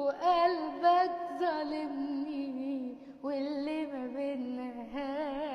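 A woman singing an Egyptian Arabic romantic ballad, drawing out long ornamented notes with heavy vibrato, with a brief pause about three seconds in.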